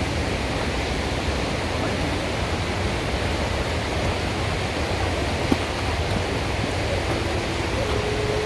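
Steady rushing noise, with a single short click about five and a half seconds in and a faint steady tone coming in near the end.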